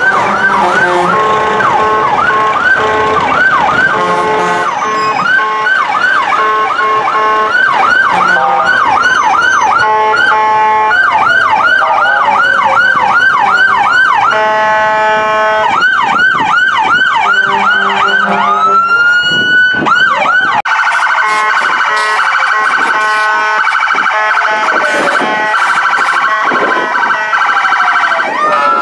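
Electronic sirens on parading fire apparatus, several at once. For the first half, rapid yelping sweeps run several times a second, broken around the middle by a steady blaring tone of about a second and a half. A slow rising wail follows, and after that overlapping wails rise and fall over continued yelping.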